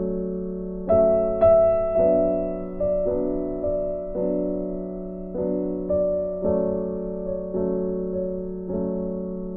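Slow, soft background piano music: notes struck one after another, each fading, over a held low note.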